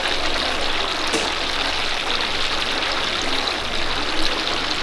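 Battered chicken skewers and pieces deep-frying in a pot of hot oil: a steady, dense sizzle and crackle of bubbling oil, with a light click about four seconds in.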